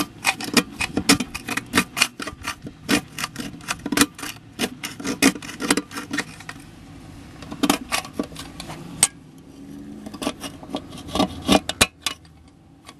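Small hard parts and their packaging being handled: a run of irregular clicks, clinks and rattles, several a second, thinning out after about nine seconds.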